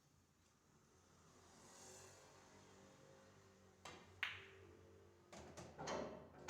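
Two sharp clicks about a third of a second apart on pool balls, a cue tip striking the cue ball and balls colliding, after a quiet stretch; louder irregular sounds follow near the end.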